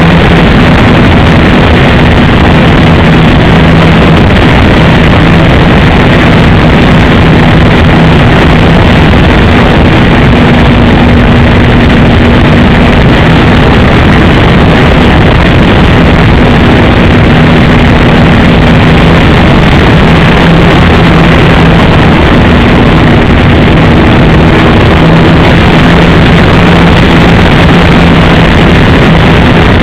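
A radio-controlled Piper J-3 Cub model plane's engine running in flight, a steady buzzing note that fades and comes back at times. It sits under a loud, constant rush of noise.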